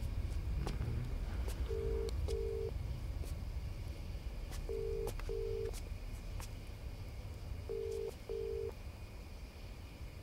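Phone ringback tone of an outgoing call that is not yet answered: three double rings, each a pair of short, low, steady beeps, about three seconds apart. A low steady rumble lies beneath.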